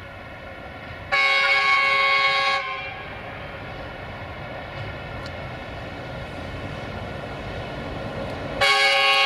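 060-EA (LE 5100 kW) electric freight locomotive sounding its horn twice. The first blast lasts about a second and a half; then the rumble of the approaching train grows slowly louder, and a second blast starts near the end and is still going.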